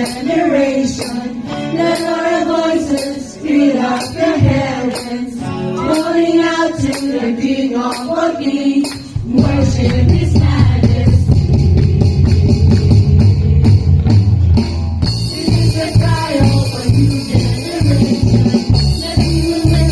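Church worship song: voices singing over a tambourine struck about once a second. About nine seconds in, a full band with heavy bass and drums comes in, and later a steady high cymbal or shaker shimmer is added.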